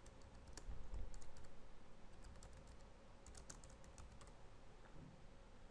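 Faint typing on a computer keyboard: a run of irregular keystroke clicks.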